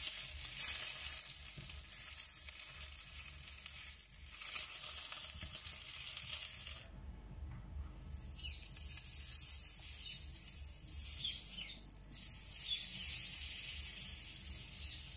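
Fat sizzling steadily in a hot nonstick frying pan as an egg fries. After a short break about seven seconds in, a pat of butter sizzles as it melts in the pan.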